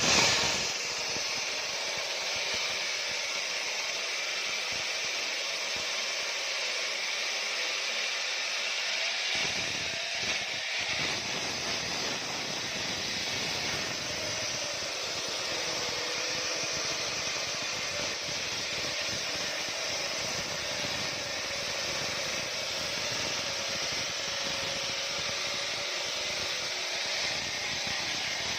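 Diamond saw cutting a reinforced concrete slab: a steady, even grinding hiss with a faint held tone, deepening a little about nine seconds in.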